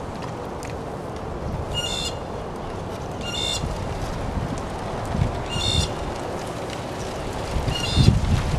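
A bird gives a short, nasal, honking call four times, about every two seconds, over wind rumbling on the microphone that gusts near the end.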